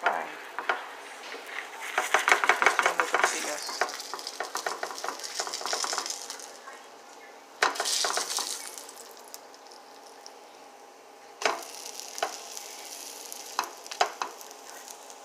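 Quesadillas frying in oil in a frying pan, sizzling with dense crackling spatters that are heaviest in the first few seconds and swell again about halfway through. A spatula knocks against the pan a few times near the end.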